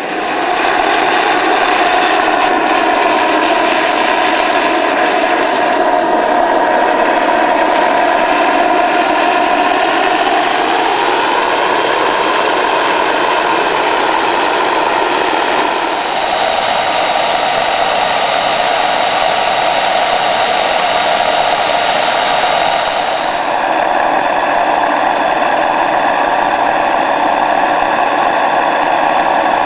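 Home-built twin-spool gas turbine turboshaft engine, built around a turbocharger, running and spinning a propeller: a loud, steady rush of air with a high turbine whine. The whine rises in pitch about ten seconds in and changes again a couple of times after that.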